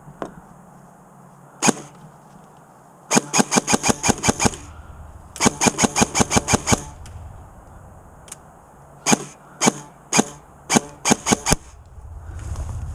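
Airsoft gun firing: two rapid bursts of about seven or eight shots a second, each about a second and a half long, then six single shots spaced about half a second apart.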